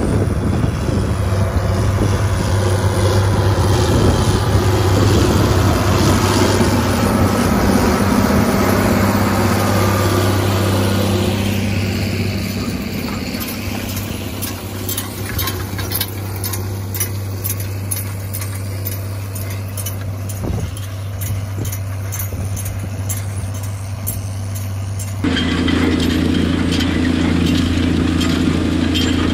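Large John Deere farm tractor's diesel engine running steadily under load as it pulls a zone builder through the field. The drone eases off somewhat partway through. About 25 seconds in it jumps suddenly louder and closer.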